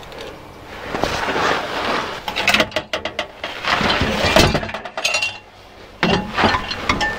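A new metal exhaust backbox being worked into place under a Vauxhall Corsa, clinking and scraping against the car's underside. It comes in two spells of clatter with a lull about five seconds in.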